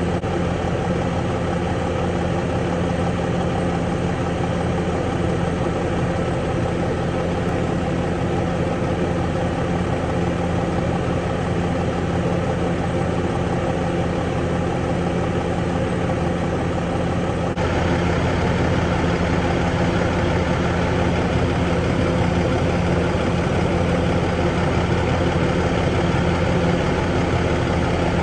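Engine idling steadily with a low, even hum, with a hiss that grows louder and stays up after about eighteen seconds.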